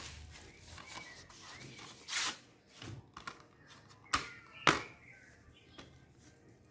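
Plastic Blu-ray disc case being handled and opened: a brief sliding swish about two seconds in, then two sharp plastic clicks about half a second apart, with lighter ticks around them.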